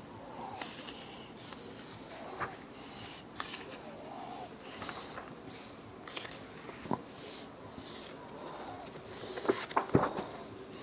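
Paper pages of a printed book being turned and flicked, in short rustling swishes and light clicks, with a few sharper knocks from handling the book near the end.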